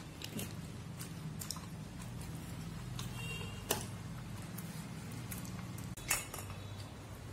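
Dishes and cutlery clicking a few times over a low steady hum, the loudest click just before four seconds in and another about six seconds in.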